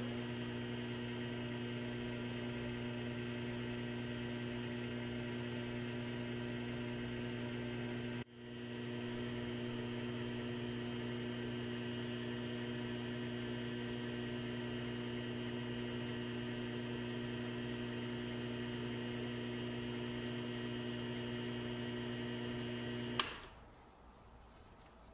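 Benchtop mini lathe motor running at steady speed with an even hum, dropping out for a moment about 8 seconds in and picking straight back up. It stops with a click near the end.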